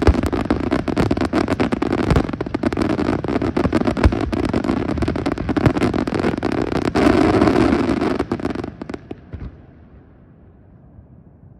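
Aerial fireworks display: a dense barrage of crackling and bangs from bursting shells, swelling about seven seconds in. It then dies away about nine seconds in, leaving only a faint low rumble.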